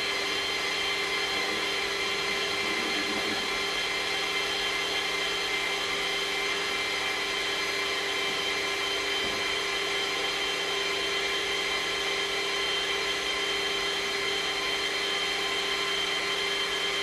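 FE magnetic drill's motor running as its annular cutter bores through a steel plate, a steady whine of several held tones at one constant level.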